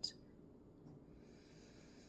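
Near silence: faint room tone, with one brief soft click right at the start.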